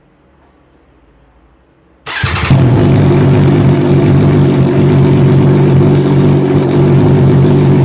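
MV Agusta Brutale motorcycle engine started about two seconds in: a short burst of starter cranking, then the engine catches and runs loud and steady at idle.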